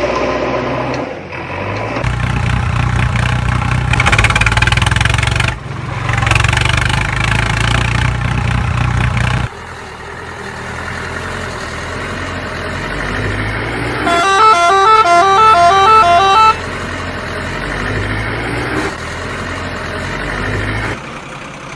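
Truck engine running, with horn honking; about two-thirds of the way through, a horn plays a quick alternating two-note pattern for about two seconds.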